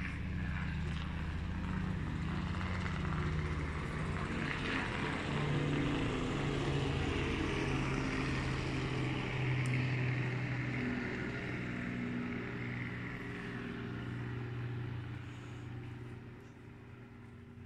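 An engine drones steadily, growing louder toward the middle and fading away over the last few seconds.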